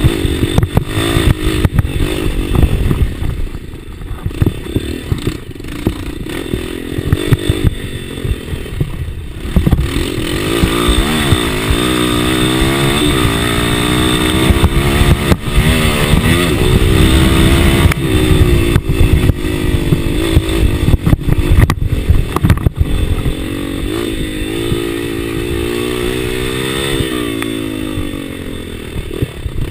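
Enduro motorcycle engine running hard under a rider, its revs climbing and dropping again and again. Sharp knocks and clatter from the bike jolting over rough ground break in here and there.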